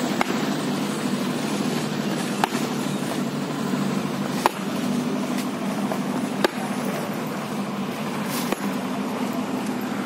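A concrete mixer's engine running steadily, with a sharp click about every two seconds.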